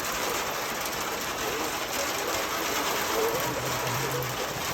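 Rain falling with hail mixed in, an even, continuous rush of noise with fine rapid ticks of hailstones striking surfaces.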